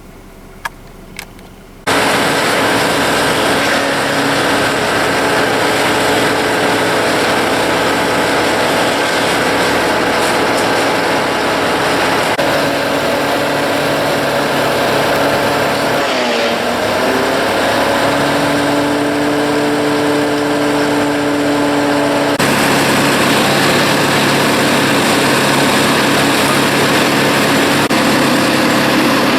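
Chainsaw's small two-stroke engine running loud and steady at high speed, its pitch dropping and then recovering about halfway through, as when the saw bogs in a cut; a couple of faint clicks come before it starts abruptly.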